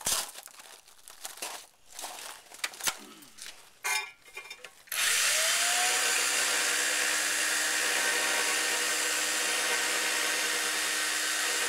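Corded electric drill set on low speed starting about five seconds in: its motor winds up briefly, then runs steadily as the bit drills down into a hard tile rack. Before it, scattered knocks and clicks of the drill being handled.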